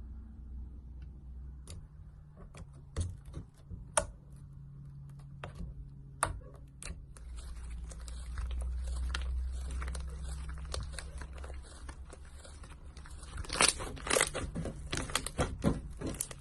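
Slime being squeezed and worked by hand, giving scattered sharp clicks and pops that grow into dense crackling near the end, over a steady low hum.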